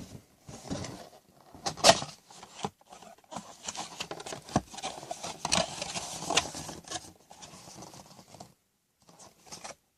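Irregular rustling, scratching and tapping as a sealed trading-card box is handled and its plastic wrapping picked open, with a sharper crack about two seconds in and a brief pause near the end.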